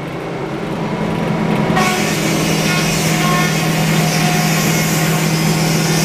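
Sawmill engine running with a steady hum; a little under two seconds in, the saw starts cutting into a log and a loud, even cutting noise joins it and carries on.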